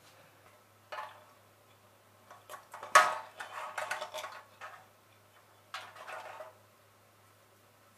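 Light clinks and rattles of a thin aluminium drink-can lantern and its wire hanger being handled and hung up, in a few short clusters, with a sharp clink about three seconds in as the loudest.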